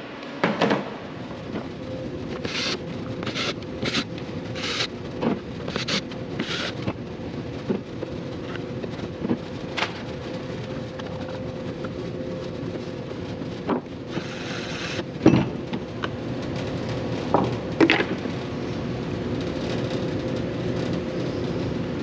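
A hard drive being taken apart by hand on a wooden workbench: scattered sharp clicks, taps and short scrapes of the metal lid and small screws, over a steady hum.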